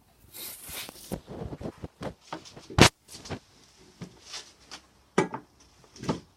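Irregular clunks, knocks and scraping of a bench vise and clamp being handled and tightened, with the sharpest knock a little under three seconds in.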